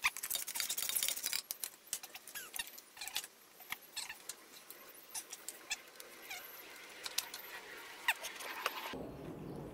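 Light metallic clicks and rattles as a VW Golf Mk5's aluminium AC condenser is worked loose with a hand tool and lifted out from in front of the radiator. The clicks are densest in the first second or so, then come scattered.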